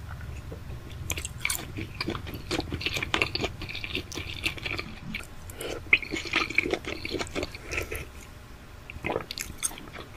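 A grey parrot eating, with irregular crunching and chewing of food in quick, uneven clicks and crackles.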